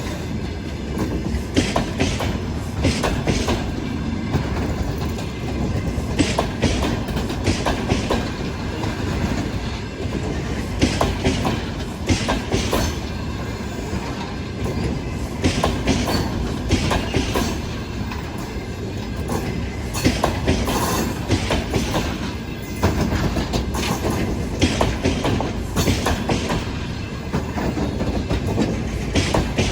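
Double-deck passenger train running past, its wheels clattering over rail joints in repeated clusters of sharp knocks over a steady rumble.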